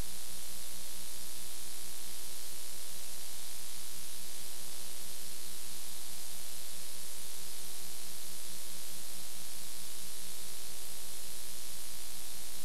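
Steady static hiss with a low buzzing hum and no programme sound: the noise floor of an analogue video tape transfer.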